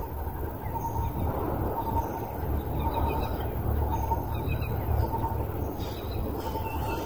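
Outdoor ambience: scattered faint bird chirps over a steady low rumble.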